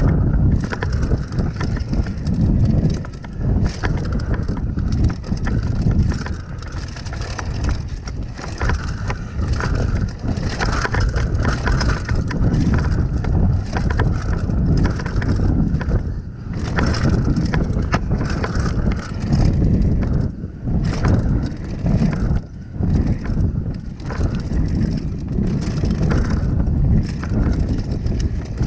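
Mountain bike descending a dirt trail: wind rushing over the microphone and tyres rolling over dirt, with frequent small knocks and rattles.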